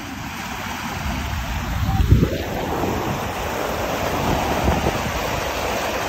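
Waves splashing and washing against shoreline rocks, with wind buffeting the microphone; the loudest splash comes about two seconds in.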